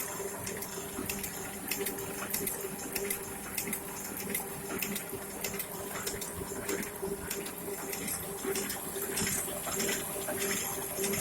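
Offset printing press running steadily: a constant hum with a held tone and the rapid fine clicking and rattling of its mechanism.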